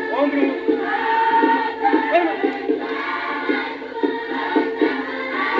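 A group of West African voices singing and chanting together over a repeating rhythmic beat.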